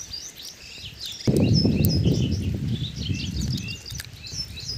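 Many small birds chirping and twittering throughout. About a second in, a loud low noise starts suddenly and lasts about two and a half seconds, louder than the birds.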